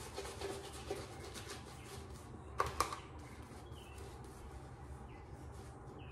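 Badger-hair shaving brush scrubbing lather onto the face, a run of faint brushing strokes, with two sharp clicks about two and a half seconds in.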